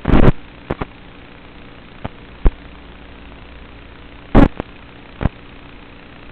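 Audio recorded through an analog FPV video link: a steady hum from the flying wing's motor and electronics, broken by several short, loud crackles of static, the biggest right at the start and about four and a half seconds in.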